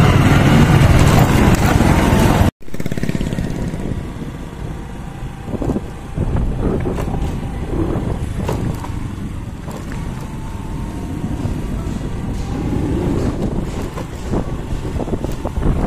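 Loud rushing wind noise on the microphone for about two and a half seconds. After a sudden cut, a Honda motorcycle's engine runs steadily while the bike is ridden along a street.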